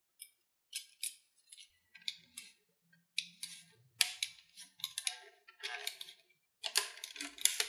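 Utility knife blade scraping and clicking against a router's plastic case, in a run of short, irregular scrapes and clicks that grow busier in the second half.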